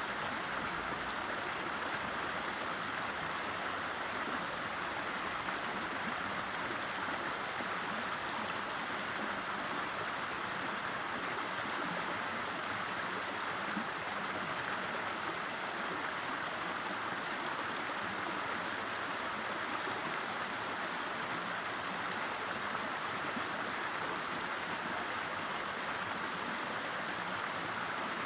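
River water flowing steadily, an even rushing hiss with no change throughout.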